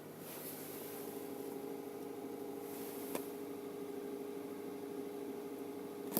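Second-generation Kia Cee'd engine idling steadily after a cold start, with a short click about three seconds in and another near the end. The owner is recording a knock that appears on cold starts.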